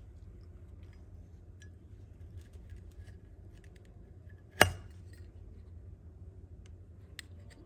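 Zippo lighters being handled: faint small metal clicks, then one loud sharp metal clink about four and a half seconds in.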